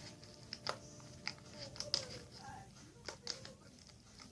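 Freshly activated glue slime being squished and kneaded in a plastic container, giving irregular small sticky clicks and snaps; it is being worked until the leftover activator liquid is gone.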